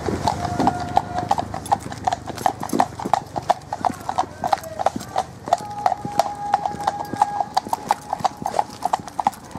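Shod horses' hooves clip-clopping on a tarmac lane, many sharp irregular strikes from more than one horse. A steady high note sounds briefly near the start and again for about two seconds past the middle.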